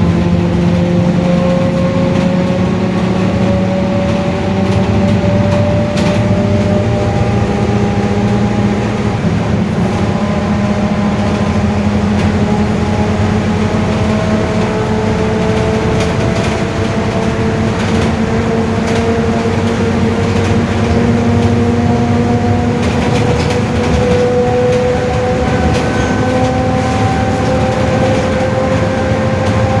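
Differential of a Mercedes-Benz OF-1721 bus whining very loudly under way: a pitched howl that climbs slowly as the bus gathers speed and eases back now and then, over the drone of the engine and road.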